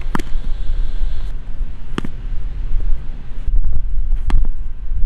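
Wind buffeting the microphone, with three sharp knocks about two seconds apart: a softball bat meeting tossed balls on bunts.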